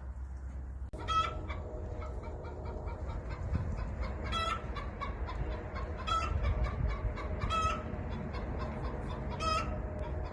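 Chickens clucking, with repeated short calls every second or two, starting about a second in over a steady low rumble.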